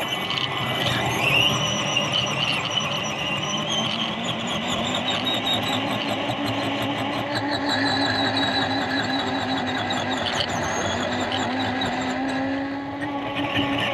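Radio-controlled scale Mercedes G-Class driving, heard from onboard: a steady motor and gear whine whose pitch rises and falls with speed.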